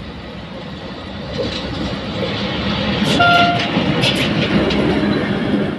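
A train passing close by on the track, its noise building and growing louder, with a brief high tone and a few sharp clicks a little past halfway.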